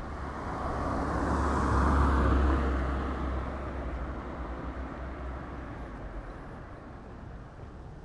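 A road vehicle passes by, its noise swelling to a peak about two seconds in and then slowly fading away.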